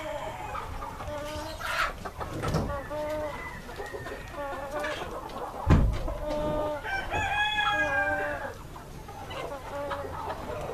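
Light Brahma chickens in a flock clucking, with roosters crowing; the longest crow comes about seven seconds in. A dull thump, the loudest sound, lands just before it.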